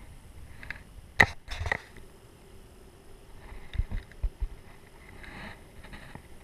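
Handling noise aboard a small fishing boat: a sharp knock about a second in, a short clatter after it, then a few dull thumps and a rustle, over a faint steady hum from the bow-mounted electric trolling motor.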